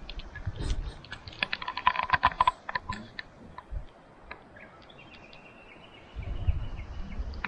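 Rapid metal clicking and rattling, most dense a second or two in, from a carabiner on a steel zipline cable. Later a thin high steady tone sounds, and a low rumble comes in near the end.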